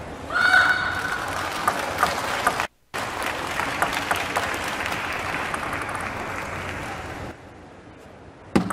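Arena crowd applauding, a dense clatter of many hands clapping that dies away about seven seconds in. Near the end comes one sharp click of a table tennis ball struck on a serve.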